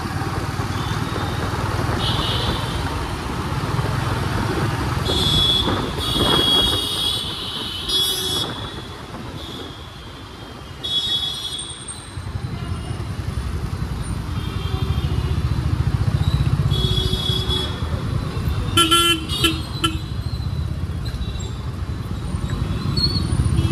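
Motorcycle running through dense city traffic, its engine and wind rush steady under the ride. Vehicle horns toot repeatedly around it, about half a dozen short honks spread through the stretch.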